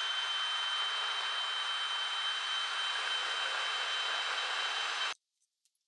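DeWalt cordless drill running at speed, its bit boring a hanger-bolt hole into the wood through a metal doweling jig's guide, with a steady high whine. It stops suddenly about five seconds in, leaving a few faint clicks.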